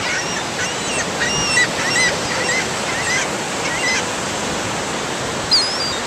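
Gulls calling, many short squawks in quick succession for the first four seconds and one more loud call near the end, over a steady wash of ocean surf and wind.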